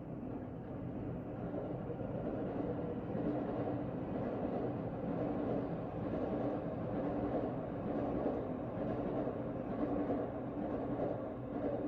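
Steady low rumble of a vehicle running, with a faint steady hum.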